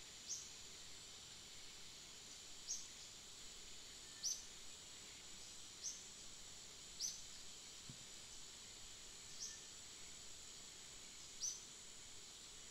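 Outdoor ambience: a steady high insect drone, with a short, high, slightly falling chirp repeating every couple of seconds, seven times in all.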